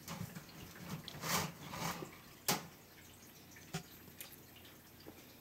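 African bullfrog lunging at and seizing a dangled feeder mouse. Scuffling rustles, then one sharp wet snap about two and a half seconds in and a smaller click a second later.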